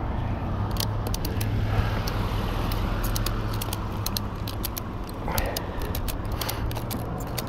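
Movement and handling noise on a low-carried camera crossing an asphalt parking lot: a steady low hum with a stream of sharp clicks and crackles.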